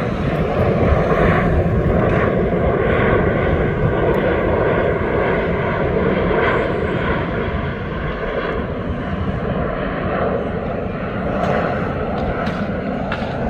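Jet airliner's engines running loud and steady as it passes: a broad rush with a whine on top.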